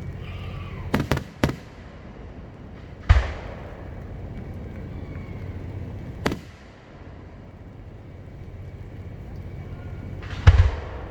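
Aerial firework shells bursting: a quick run of three sharp cracks about a second in, then single booms with a trailing rumble about three seconds in, a sharp crack about six seconds in, and a heavy boom near the end.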